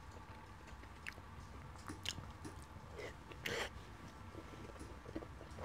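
A person chewing a mouthful of curry chicken close to the microphone, with soft wet mouth clicks. There is one louder, short smacking noise about three and a half seconds in.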